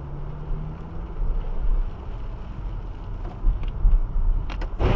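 Low steady rumble of a car driving slowly over a wet street, heard from inside the car's cabin. A few short knocks come near the end, then a loud hit right at the end.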